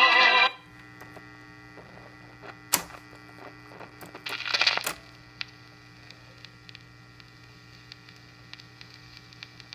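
1950 Ristaucrat Dial-O-Matic 45 rpm record changer/radio between records: the music cuts off about half a second in, leaving a steady mains hum from the set. A sharp click comes a little before 3 s in and a brief scraping rustle a little after 4 s in, as the changer mechanism cycles to the next 45.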